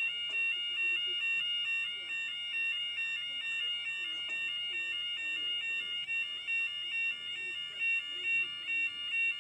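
Automatic level crossing audible warning (yodalarm) sounding continuously, a high electronic tone stepping rapidly back and forth between pitches. It is the warning that the crossing sequence is active and road traffic must stop.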